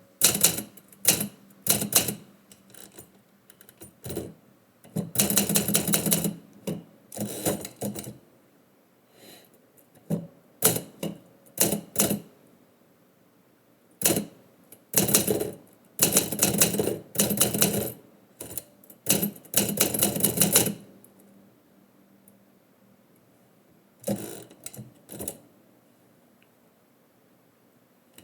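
Typewriter being typed on: runs of keystrokes in bursts with short pauses between them, going quiet for the last few seconds.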